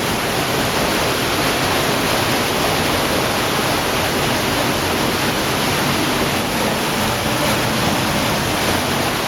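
Cave stream in near-flood conditions rushing and splashing through the passage: a steady, unbroken noise of fast-flowing water.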